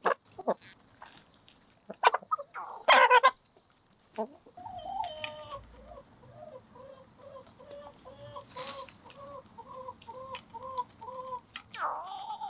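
Domestic hens clucking while they drink and peck at an enamel cup, with sharp taps of beaks on the metal. A loud squawk comes about three seconds in, then one hen gives a steady run of repeated clucks, about two a second, and a falling squawk near the end.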